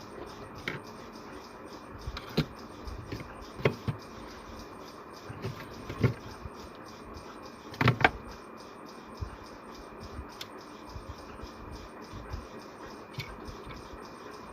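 Scattered clicks and small knocks from hands working on the wiring of an electrical switchboard, joining the neutral wire to the sockets' terminals. The loudest is a quick double knock about halfway through.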